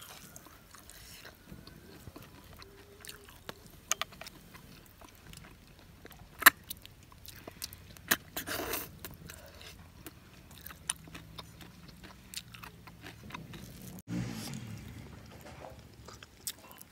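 A person eating cooked snails by hand: sparse sharp clicks of shells and fingers against the bowl, a short slurp about halfway through as a snail is sucked from its shell, and soft chewing.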